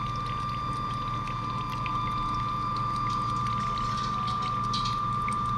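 Small peristaltic dosing pump motors running with a steady high whine over a low hum, pumping coloured liquid, which trickles into a bowl with faint scattered drips.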